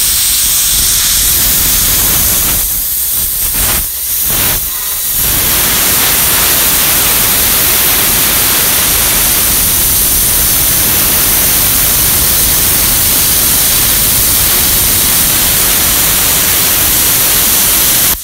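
Plasma cutter cutting steel plate: a loud, steady hiss of the arc and compressed air. It breaks off briefly a few times between about three and five seconds in, then runs on unbroken.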